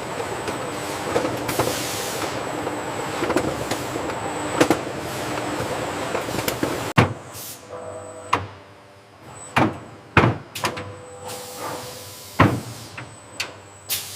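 Factory machinery running with a dense clatter of clicks and knocks. About seven seconds in it changes abruptly to a quieter steady hum, broken by separate sharp clunks.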